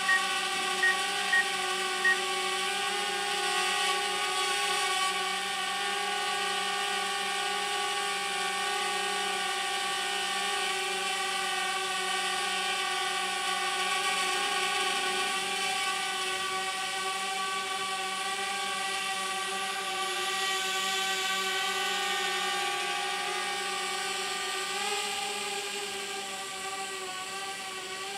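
Quadcopter drone in flight, its propellers giving a steady whine at a nearly constant pitch. A few short electronic beeps sound in the first couple of seconds, and the whine fades slightly near the end.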